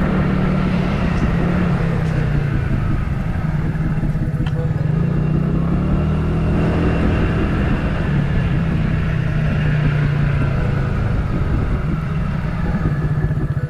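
A road vehicle's engine running steadily while driving, its hum drifting up and down a little in pitch.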